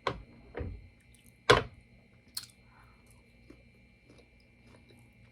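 Close-miked chewing and wet mouth smacks while eating. A few sharp smacks come in the first two and a half seconds, the loudest about a second and a half in, then only faint small clicks.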